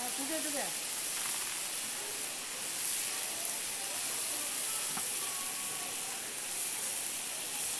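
Tteokgalbi patties frying on an oiled flat-top griddle, a steady sizzle, with one short click about five seconds in.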